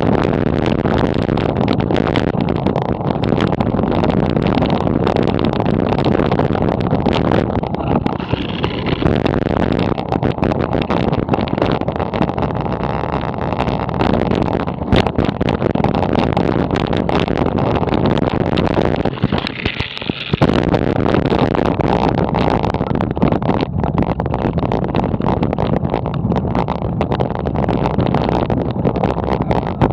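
Wind buffeting a handlebar-mounted camera's microphone and road rumble as a bicycle rides along, with frequent small knocks and rattles. The rumble drops away briefly about twenty seconds in.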